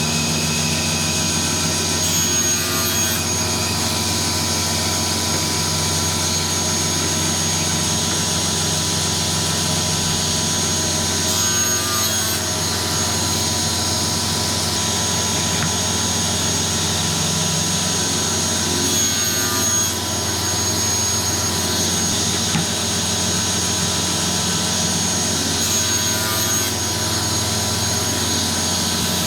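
A woodworking power tool's motor running steadily and loudly, with a slight change in the sound four times, about every seven to eight seconds.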